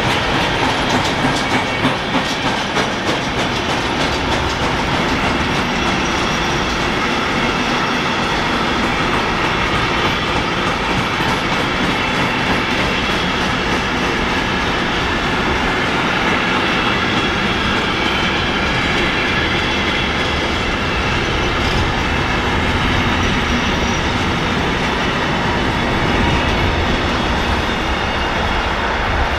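A long train rolling past on the track, its wheels and cars making a steady rumble on the rails, a little uneven in the first few seconds.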